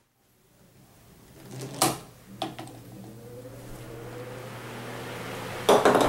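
A plastic ball rolls down a track and clicks a power strip's switch on about two seconds in. An electric desk fan then hums and spins up, its rising whine and air noise growing louder, with a thump near the end.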